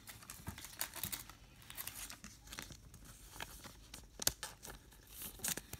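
Thin plastic wrapper crinkling and trading cards being handled, a run of faint small crackles with one sharper click a little past four seconds in.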